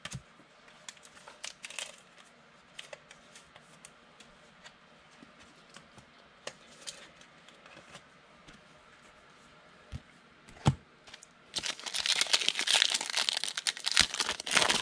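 Trading-card pack wrapper being torn open and crinkled in the hands, starting near the end after a stretch of faint scattered clicks and a couple of light knocks.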